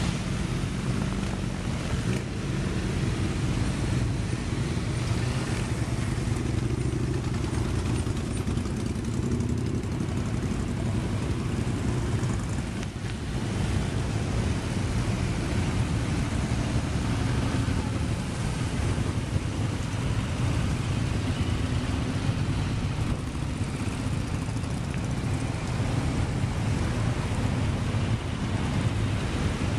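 A long procession of motorcycles, a mix of sport bikes and cruisers, riding past one after another, their engines running steadily in an unbroken stream of engine noise.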